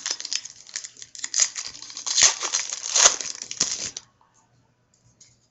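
A trading card pack wrapper being torn open and crinkled in the hands. The crackling stops about four seconds in.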